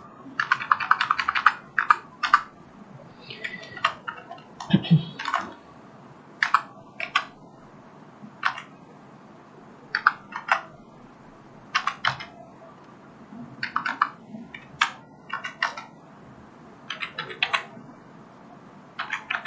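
Typing on a computer keyboard: irregular key presses in small bursts, with a quick run of strokes about a second in and a dull thump about five seconds in.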